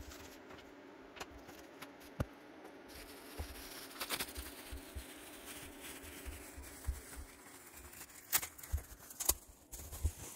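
Bubble wrap and plastic packaging rustling and crinkling as it is handled and unwrapped, with a few sharp crackles scattered through it.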